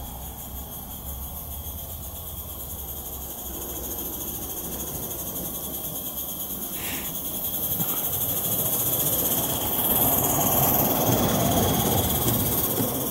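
Live-steam 16 mm scale model locomotive, an Accucraft L&B 2-4-2 tank, approaching while propelling a snow plough: its steam exhaust and wheel noise on the rails grow louder from about two-thirds of the way in. A steady high hiss runs throughout.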